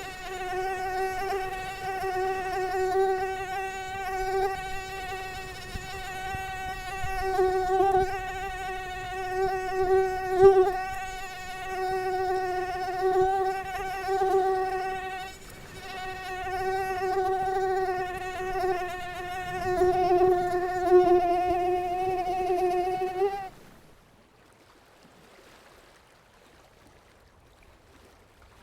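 Mosquito whine: a steady, high buzzing tone with many overtones that swells and fades in loudness. It breaks briefly about halfway, then cuts off suddenly about five seconds before the end, leaving a faint background hiss.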